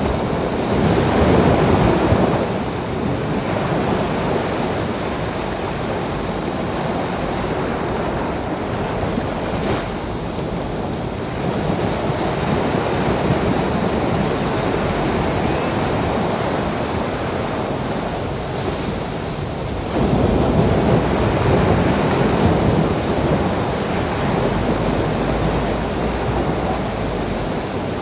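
Sea waves washing onto a shore: a steady rush of surf that swells louder three times, about a second in, around the middle and about two-thirds of the way through.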